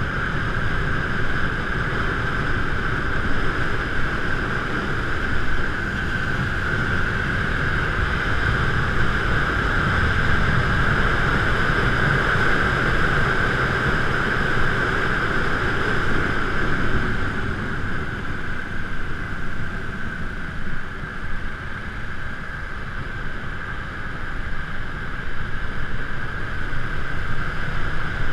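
Steady rush of wind and road noise picked up by a GoPro mounted on a moving bike, with a constant higher hiss over a low rumble and little change throughout.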